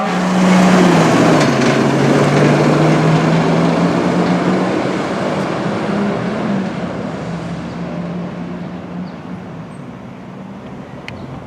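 A fire apparatus's diesel engine driving off. The engine note drops in pitch about a second in, then the truck and its road noise fade steadily as it pulls away.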